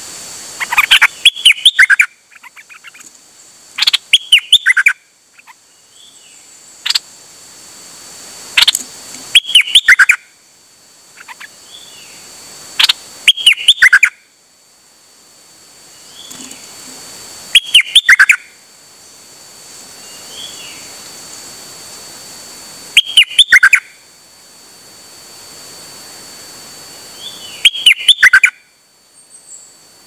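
Songbird known in Thai as nok dok taeng singing loud, short, rapid phrases, seven of them about four to five seconds apart, with softer single calls in between. A steady high tone runs underneath.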